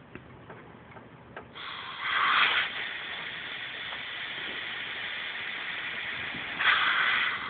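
Compressed air hissing out at a small airbrush compressor's regulator. The hiss starts about a second and a half in, swells twice, near the start and again near the end, and stops abruptly.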